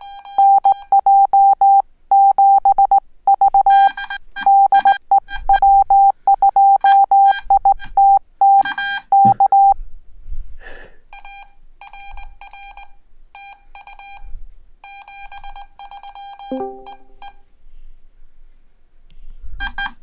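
Morse code (CW) sent through the CW Hotline over the VBand internet link, heard as a keyed tone of about 800 Hz beeping in dots and dashes. A loud stretch of nearly ten seconds is followed, after a short pause, by a fainter, buzzier run of characters and a last short burst near the end.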